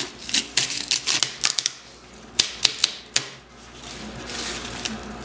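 Corrugated cardboard being peeled and torn away in strips, with quick scraping and ripping for the first second and a half. Then come a few sharp clicks about two and a half to three seconds in, and a softer brushing of a hand over the exposed cardboard flutes near the end.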